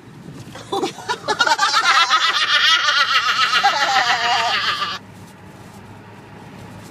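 Hearty laughter lasting about four seconds, breaking off suddenly about five seconds in, over the steady low hum of the car's cabin.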